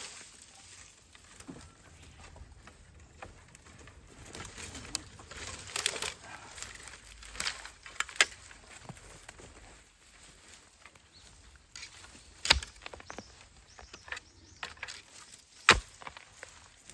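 Irregular rustling and crackling, like dry leaves and stems being trodden or handled, with two sharp snaps, one about twelve seconds in and another about three seconds later.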